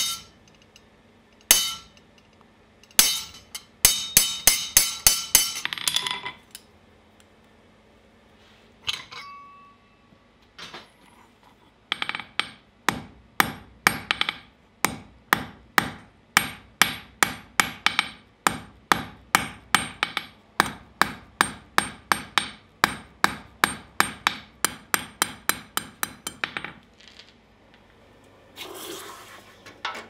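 Hand hammer striking a red-hot steel bar on the anvil, ringing with each blow, at first through a spring fuller. A few single blows and a quick run of about five a second give way to a long steady run of about three blows a second. Near the end comes a short hiss as the hot steel is quenched in a bucket of water.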